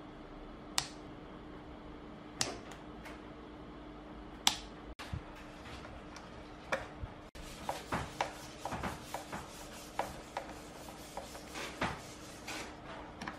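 Screwdriver turning out the screws of a speaker cabinet's back panel: scattered small clicks, ticks and scrapes of the bit and screws, coming more often in the second half, over a faint steady hum.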